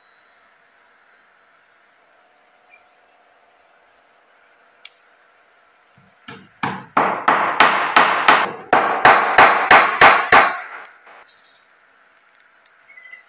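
A hammer drives a glued wooden plug into a screw hole in a finger-joint laminated wood tabletop. It is a quick run of about fourteen blows, three or four a second, starting about six seconds in and stopping a little after ten seconds.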